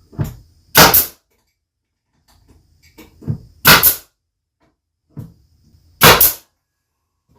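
Nails being driven into a plywood cabinet box: three loud, sharp bangs about two and a half seconds apart, each preceded by a lighter tap.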